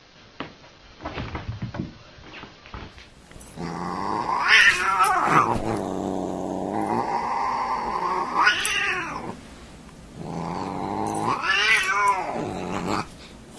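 A cat yowling in long, drawn-out calls that swell up in pitch and fall again: one call of about six seconds, then after a short pause another of a few seconds. A few soft knocks come before the first call.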